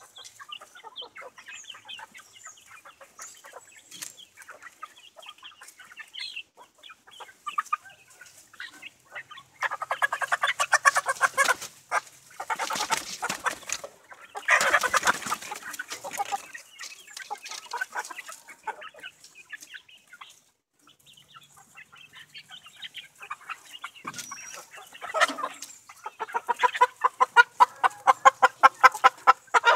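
A flock of young chickens clucking and peeping. Loud bursts of rapid squawking come about ten seconds in, around halfway and again near the end, as birds are caught by hand.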